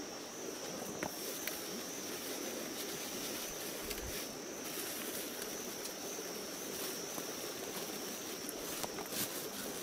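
A stream running steadily, with a continuous high insect drone over it and a few small clicks and taps.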